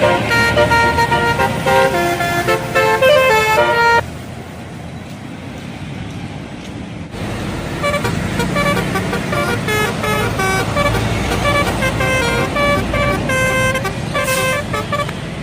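Indonesian bus telolet horn playing a quick stepping melody of several tones. It stops abruptly about four seconds in, leaving quieter traffic noise, and a second telolet melody starts about three seconds later and plays on.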